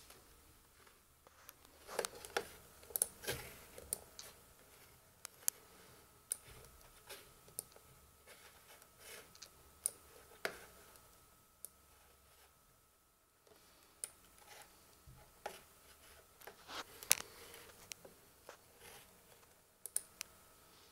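Irregular clicks and taps of a Samsung ATIV Book 2 laptop's touchpad and keys being worked, a few louder ones a couple of seconds in and again near the end, over a faint steady high whine.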